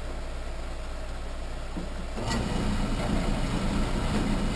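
Harbor Freight 7x10 mini lathe: a click about two seconds in, then the motor and spindle running steadily with a low hum, for a center-drilling pass.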